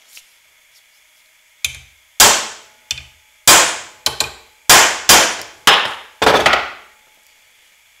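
A big hammer striking a steel punch about nine times at a steady pace, each blow ringing briefly. The punch drives dimples into a crimped copper ring terminal on the vise's anvil, staking it onto a heavy-gauge battery cable so the connection won't come loose.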